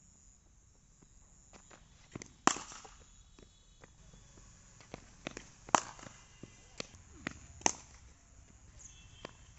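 A cricket bat striking a leather cricket ball in practice nets: a series of sharp knocks. The three loudest come about two to three seconds apart, with fainter knocks in between.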